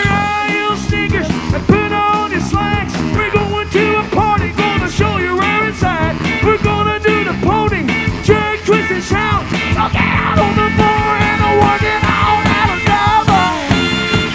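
Live rockabilly band playing an instrumental passage: drums, electric guitar, bass and horns, with a crowd audible under the music.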